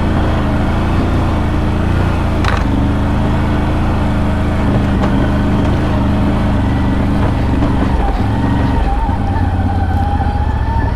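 ATV engine running steadily under way, the CFMoto CForce 1000 Overland's V-twin, with tyres on rough trail. There is a short knock about two and a half seconds in, and the engine note dips and changes briefly about eight seconds in.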